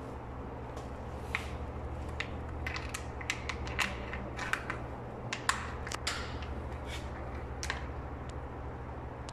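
Plastic sheeting and a plastic jug crinkling and clicking in gloved hands: a run of irregular crackles, thickest in the middle seconds, over a steady low hum.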